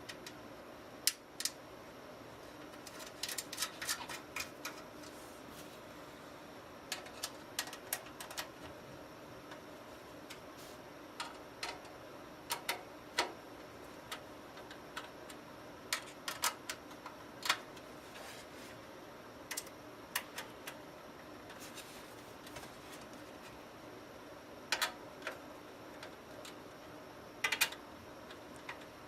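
Scattered light clicks and taps of parts and tools being handled while a power supply is fitted into a PC case, some single and some in quick clusters, over a steady faint hum.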